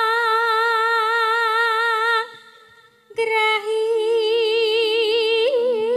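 A sinden, a female Javanese gamelan singer, singing into a microphone: a long held note with wide vibrato that breaks off about two seconds in, then after a short breath another long held, wavering note. Soft lower instrumental notes, changing pitch in steps, sound beneath the second note.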